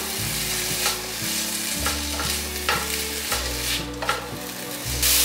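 Vegetables stir-frying in a nonstick wok: a steady sizzle with a spatula repeatedly scraping and tossing the strips of king oyster mushroom, green pepper and baby corn. The sizzle gets louder just before the end.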